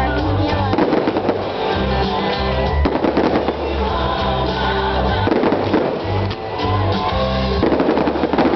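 Music plays loudly with a steady bass line, and fireworks shells burst and crackle over it now and then.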